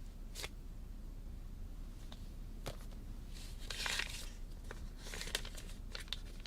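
Soft rustling and crinkling with scattered light clicks, most of it about three and a half to four seconds in and again near the end, over a low steady room hum.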